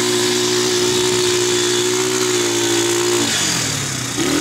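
Quad bike engine running steadily at speed, with wind rushing over the microphone. About three seconds in, the throttle is let off and the engine note falls away; near the end it is opened again and the note climbs quickly back up.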